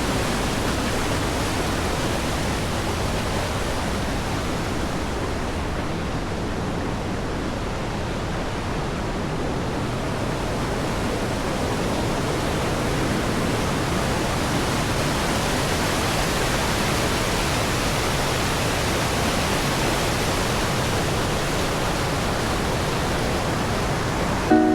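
Rushing mountain creek water, a loud, steady rush of whitewater over rocks.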